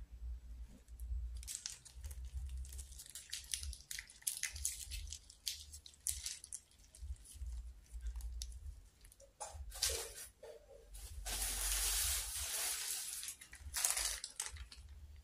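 Thin plastic bag of peanut sauce crinkling and crackling as it is squeezed and pulled, with a longer unbroken rustle about eleven seconds in.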